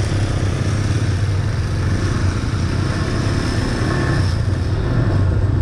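Motorcycle engine running at a steady cruising speed while riding, a constant low drone, with wind rushing over the microphone.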